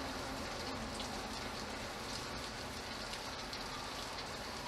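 Steady rain falling, with water dripping off the edge of a roof.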